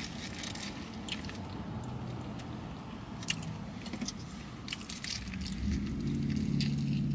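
Close-up chewing and biting of crispy fries and a gyro, with a few sharp clicks and crunches. Under it runs a low traffic rumble that grows louder near the end.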